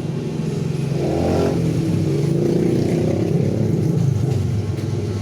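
A motor vehicle's engine running close by, rising in pitch and getting louder about a second in, then easing off toward the end.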